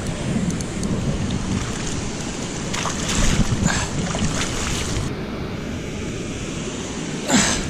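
Wind buffeting the microphone over moving water, a steady low rumble, with a few short splashy bursts in the middle and a louder one near the end.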